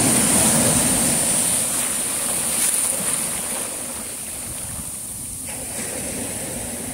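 Sea surf washing on the beach as a steady rush. It is loudest near the start and eases off about halfway through.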